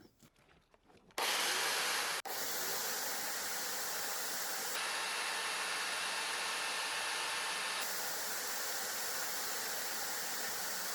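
A power tool running steadily on wood, an even rushing noise with no rhythm that starts about a second in, with a few abrupt changes in tone where the clip is cut.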